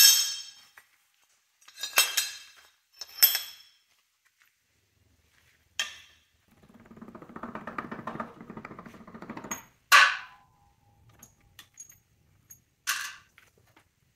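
Metal parts of a Mercedes G W463 transfer case clanking against a steel worktable as they are taken off and set down: about six sharp clanks, and one a little after halfway through rings briefly. Between them, a little past the middle, comes a rough metal scraping lasting about three seconds.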